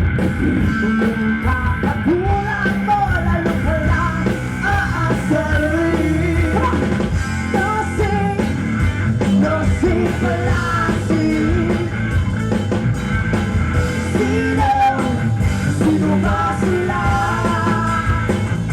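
Live rock band playing a full-band rock song, with electric guitar, bass and drums and a wavering melodic lead line over a steady low end.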